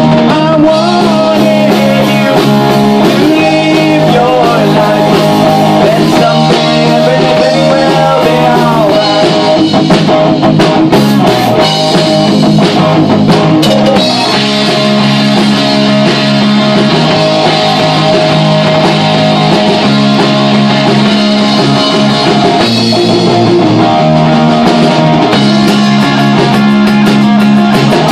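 A rock band playing loud and live: amplified electric guitar, bass guitar and drum kit, without a break.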